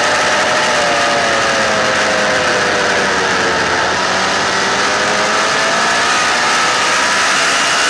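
Motorcycle engine at track speed, its pitch falling over the first four seconds as the rider eases off and leans into a corner, then rising again as the throttle is reapplied. Heavy wind rush on the camera microphone throughout.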